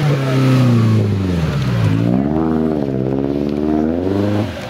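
Off-road 4x4's engine running hard at high revs. The revs sag to a low point about two seconds in, climb back and hold, then drop off near the end.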